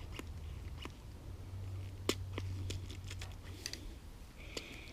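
Faint scattered clicks and light taps of a hand pump being worked to push brake fluid in through a caliper bleeder valve, over a low steady hum.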